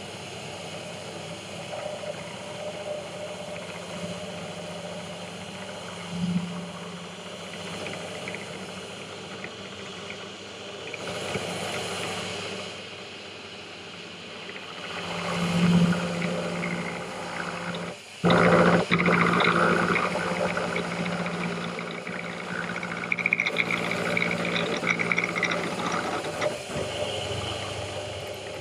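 Pillar drill running as a mill, its end mill cutting a Woodruff key slot into a metal shaft: a steady motor hum under the hiss and chatter of the cut, which swells and eases as the cut is fed. The sound dips for a moment just past the middle and then grows louder. A vacuum cleaner runs alongside to clear the swarf.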